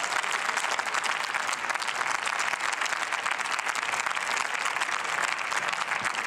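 Sustained applause from a large seated audience of members of parliament, many hands clapping in a dense, steady patter.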